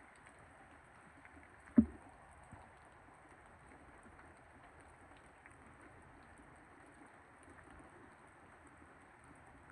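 Steady rain hiss during a heavy thunderstorm, broken by a single sharp knock a little under two seconds in that dies away almost at once.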